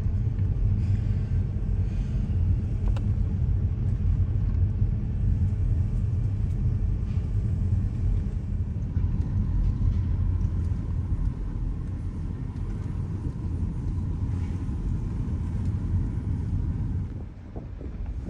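Car driving: a steady low rumble of engine and road noise that drops off briefly near the end.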